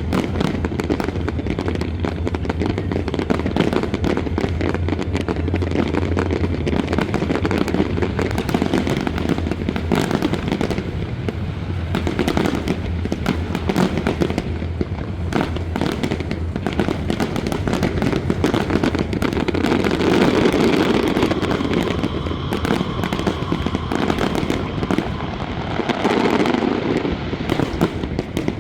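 Fireworks show: a continuous, dense run of bursting shells and crackling, bangs following one another in rapid succession.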